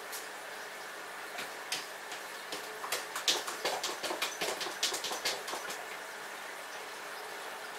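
Cat scratching and digging in the litter inside a top-entry litter box, a quick run of rasping scratches from about two and a half seconds in until nearly six seconds.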